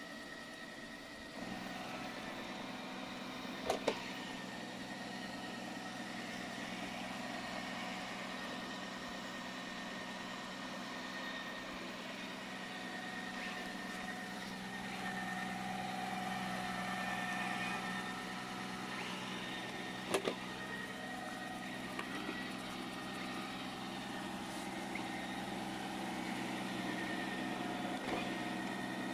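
Robot vacuum cleaner running with a steady motor hum and whine, with two sharp knocks, about 4 seconds in and about 20 seconds in.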